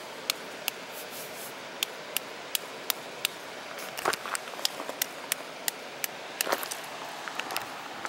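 Steady rush of water from the waterfall and river, with scattered sharp clicks and two brief scuffs, about four and six and a half seconds in.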